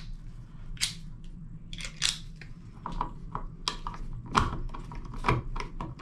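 Screwdriver working the screws of a wall light switch in its metal box: irregular small clicks, scrapes and light knocks of metal on metal.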